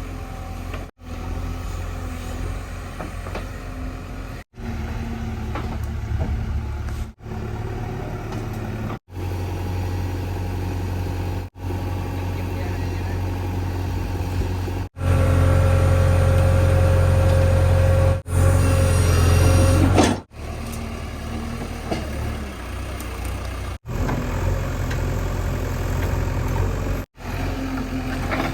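JCB 3DX backhoe loader's diesel engine running as the machine works, louder and heavier for about five seconds in the middle. The sound breaks off abruptly every few seconds.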